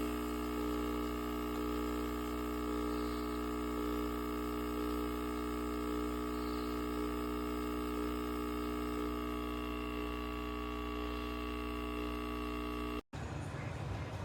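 Capsule espresso machine's pump running steadily while brewing, a constant buzzing hum with a trickle of water. It cuts off abruptly near the end.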